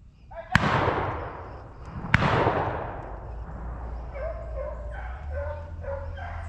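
Two shotgun shots about a second and a half apart, each trailing off in a long echo, the second louder. From about four seconds in, beagles bay in short, repeated calls.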